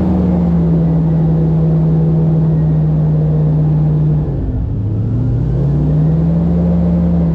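Airboat engine and propeller running steadily, then easing off about four seconds in and building back up to speed a couple of seconds later.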